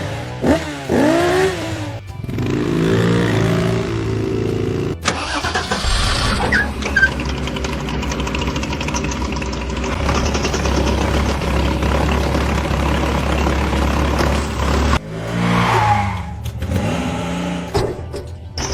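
Vehicle engines running under load with a steady low drone, cutting off and coming back a few times.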